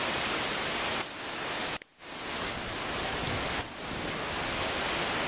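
Heavy hurricane rain pouring down on trees, a steady loud hiss, which cuts out for a split second about two seconds in.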